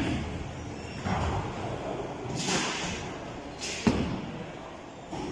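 Bowling alley noise: the low rumble of bowling balls on the lanes with scattered thuds and a clatter about two and a half seconds in, then a sharp thud just before the four-second mark.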